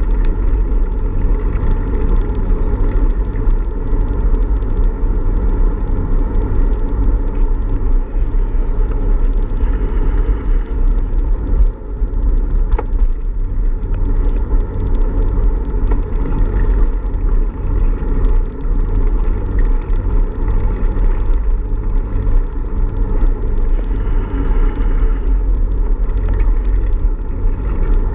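Steady low rumble of wind buffeting a bicycle-mounted camera's microphone while riding, mixed with tyre noise on asphalt.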